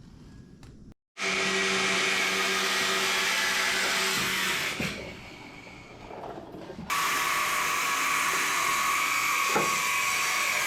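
Angle grinder with a cut-off wheel running and cutting through rusted sheet steel on a Jeep CJ5 body, a steady high whine over harsh noise. It runs in two stretches, dropping off for about two seconds in the middle, then coming back abruptly.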